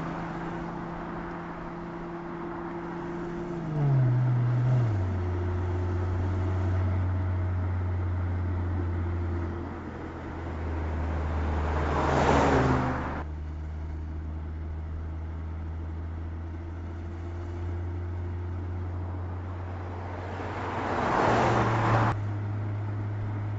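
A Mercedes E-Class Coupe sweeping past twice, each pass a swelling and fading whoosh, over a steady low drone that drops in pitch in steps about four seconds in.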